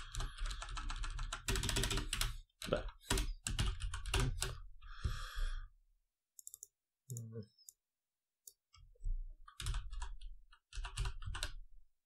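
Typing on a computer keyboard: irregular runs of key clicks, with a pause in the middle. A few slightly longer sounds come among the clicks, from a key-sound program that plays a sound for each key pressed.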